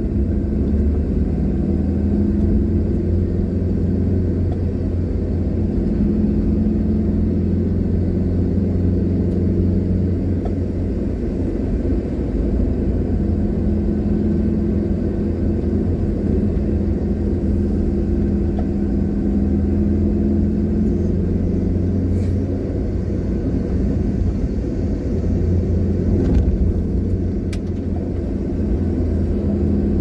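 Car driving at a steady pace on a paved road: a steady low engine and tyre rumble with an engine hum that shifts slightly in pitch, and a couple of faint knocks near the end.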